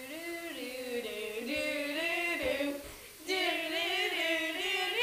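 Young female voices singing a tune in long held notes, breaking off briefly about three seconds in.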